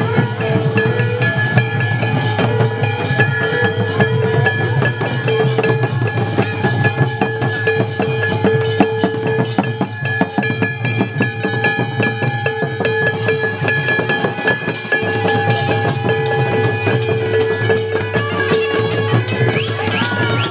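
Soura tribal procession music played live: drums and other percussion beating densely, with a pipe holding long steady notes over them.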